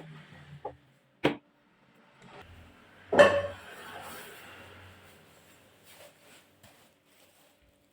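Household handling noises: a sharp knock, then a louder clatter about three seconds in that trails off over a couple of seconds, with a few faint clicks.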